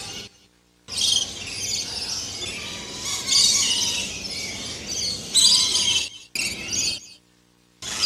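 Lorikeets chattering with shrill, high-pitched screeches, in several stretches broken by sudden silences, one just after the start and the longest near the end.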